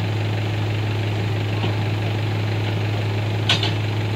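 Heavy diesel machinery idling steadily with a constant low hum, from the JCB excavator and the Tata truck it stands on. A single sharp click sounds about three and a half seconds in.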